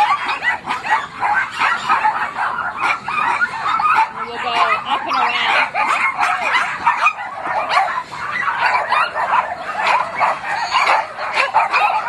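Many caged dogs barking and yipping at once, a continuous din of overlapping barks that never lets up.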